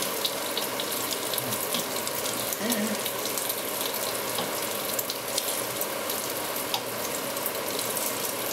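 Smoked bacon strips frying in a hot pan: a steady sizzle with many small spattering crackles.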